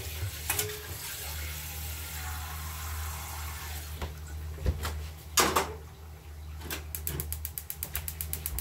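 Kitchen tap running water into a small saucepan at the sink, then a couple of clanks of the pot, the second one loud, about five seconds in. Near the end comes a quick run of light clicks, over a steady low hum.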